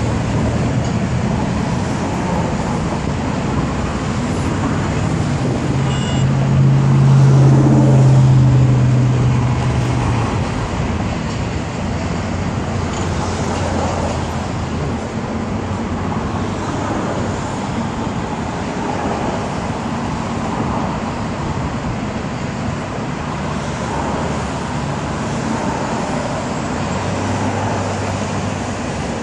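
Steady road traffic noise from vehicles passing close by. One louder vehicle goes past with a low engine drone about seven seconds in.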